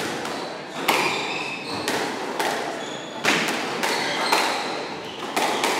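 Squash doubles rally: the ball cracks off rackets and the court walls in a quick, irregular series of sharp knocks, each with a short echo.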